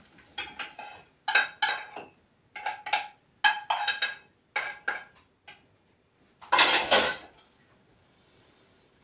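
Metal spoon clinking and scraping against a cooking pot while food is served from it onto a plate: a run of sharp ringing clinks, then a louder scrape about six and a half seconds in.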